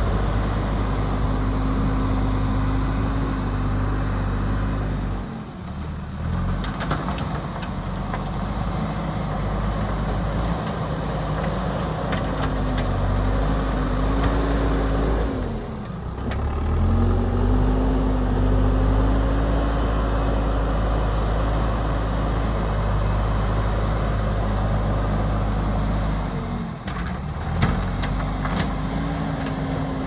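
JCB backhoe loader's diesel engine running steadily while working, its note dropping briefly and recovering three times. A few sharp knocks come near the end.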